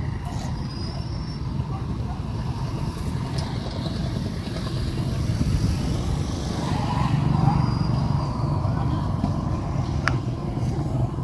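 Steady low rumble of street traffic, with one sharp click about ten seconds in.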